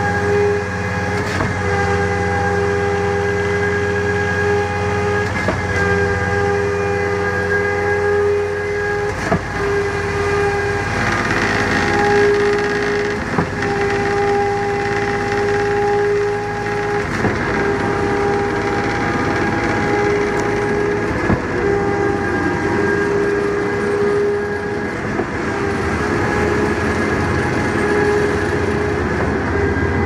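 Putzmeister 24Z concrete pump running under load as it pumps concrete up a high-rise line: a steady engine and hydraulic whine, with a sharp knock about every four seconds as the pump changes stroke.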